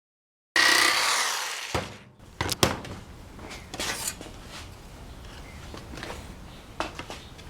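A small power tool running with a whine, starting abruptly and winding down over about a second, then a string of sharp clicks and knocks from handling plastic parts and tools.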